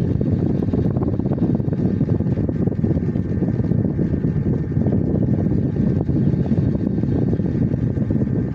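A steady low rumble with no pitch, unchanged throughout.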